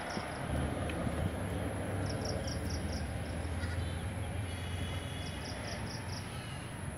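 Outdoor ambience: a steady low rumble under a noisy background. Two quick runs of about five high chirps each come around two and five seconds in.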